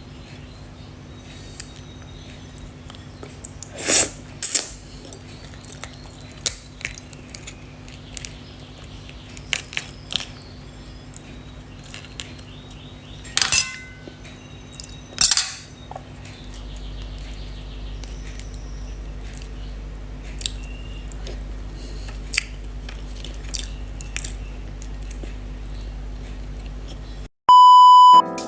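Blue crab being eaten: scattered sharp cracks and snaps of shell being broken open, with quieter chewing between, over a steady low hum. Near the end a loud steady beep tone lasts about a second.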